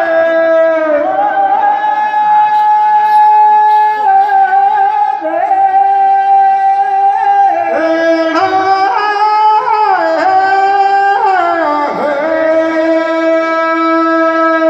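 Teja gayan, Rajasthani folk singing: a male voice, amplified through a microphone, sings long, high held notes that step from pitch to pitch and slide down at the ends of phrases.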